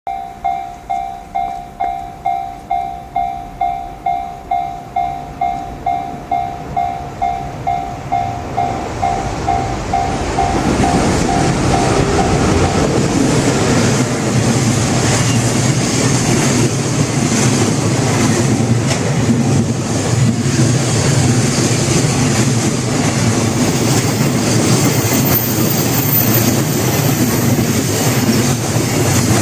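A Japanese level-crossing warning bell rings, pulsing about twice a second. From about ten seconds in, a freight train hauled by an EF81 electric locomotive passes over the crossing. The loud, steady rumble of its wheels on the rails covers the bell for the rest of the time.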